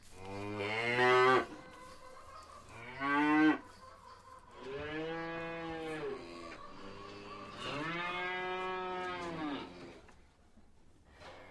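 Cattle mooing: four calls, the first two short and loudest, the last two longer and drawn out.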